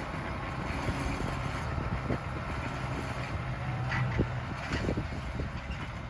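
An engine running steadily at a low hum, with scattered light clicks and knocks.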